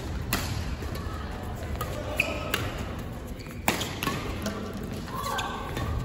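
Badminton rackets striking a shuttlecock during a doubles rally: a few sharp smacks a second or so apart, the loudest about two-thirds of the way in, each echoing in a large sports hall.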